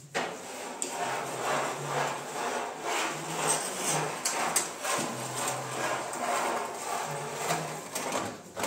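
Rhythmic scraping or rasping strokes, about one a second.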